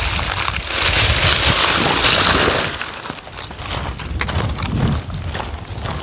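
Dry plant stems crackling and snapping as a dead plant is pulled up and bundled by hand. About three seconds in this gives way to footsteps crunching on gravel.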